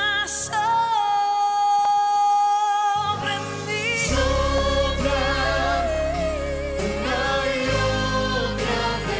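Christian worship song: a singer holds one long steady note, then carries on with a wavering melody as a heavy bass line comes in about three seconds in.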